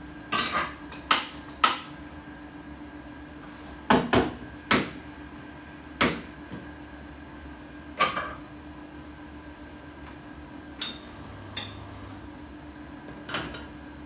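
Sharp clinks and clatters of hard objects knocking together, about a dozen at irregular intervals, each with a short ring, over a steady low hum.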